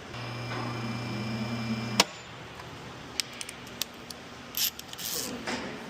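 An electric motor hums steadily for about two seconds and stops with a sharp clack. It is followed by a few light clicks and two short hisses.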